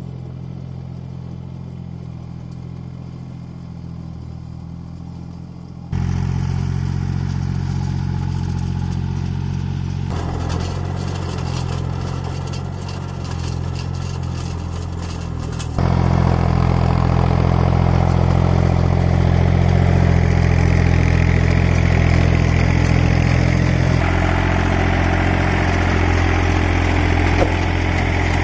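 Small farm tractor's engine running steadily while it tills a field, a constant low drone that steps louder about six seconds in and again about sixteen seconds in.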